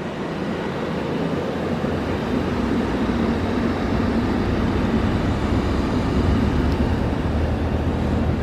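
Steady engine noise with a low hum, growing gradually louder.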